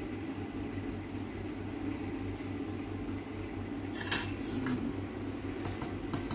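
A fork beating egg in a small bowl, clinking against its sides in a quick run of taps near the end. A few dish clinks come about four seconds in, over a steady low hum.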